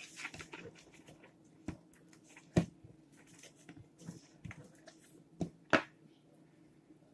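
Fluffy slime being kneaded and squeezed by hand, with soft squishing and several sharp pops, the two loudest about two and a half seconds in and near six seconds.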